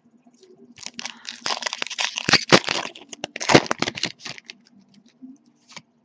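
Foil booster-pack wrapper crinkling and crackling as it is torn open and handled, a dense run of sharp crackles for about three and a half seconds.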